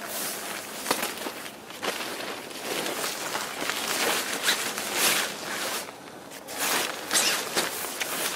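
Nylon rain poncho being unfolded and handled: irregular rustling and crinkling of the fabric, with several sharper crinkles.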